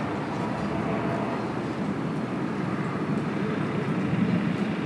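Steady rushing background noise with no distinct events, like distant traffic or wind.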